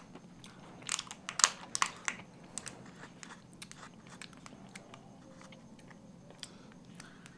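Thin clear plastic dessert cup crackling as its lid is pried open, a cluster of sharp crackles about a second in, then faint scattered clicks and scrapes as a small spoon scoops chocolate cake out of the cup.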